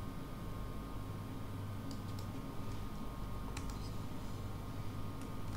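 A few scattered soft clicks of computer keyboard keys and mouse buttons over a steady low hum.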